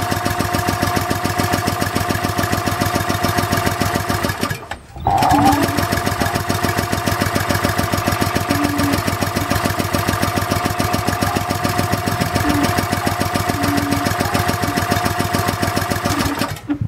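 Small single-cylinder OHV petrol engine running with a rapid, even firing beat. It cuts out about four seconds in, starts again half a second later, runs steadily, then stops just before the end.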